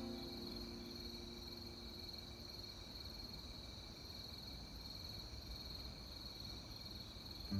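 Autumn insects chirping in a steady high trill, with a fainter, higher pulsing trill over it.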